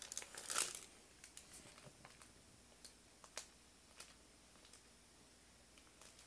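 Faint rustling and crinkling from a baby's hands and body moving on a fabric tummy-time mat and a small ball, a louder rustle in the first second, then scattered small clicks and taps.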